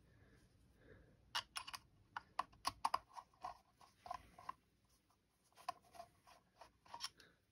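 Faint, quick clicks and light clinks of small screws being picked up and handled against the metal rail pieces. They come in a busy run from about a second in, then thin out to a few scattered ticks.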